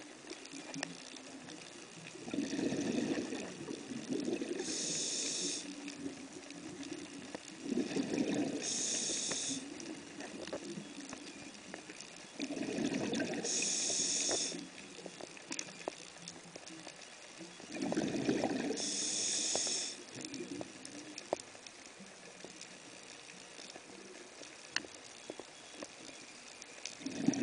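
Scuba regulator breathing underwater: four breaths about five seconds apart, each a low rush followed by a short bright hiss, then a pause of about seven seconds before the next breath begins at the very end.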